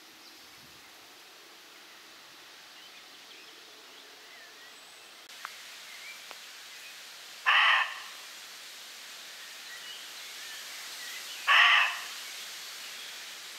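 Faint small-bird chirps over a steady outdoor hiss. Then a loud, harsh animal call rings out twice, about four seconds apart.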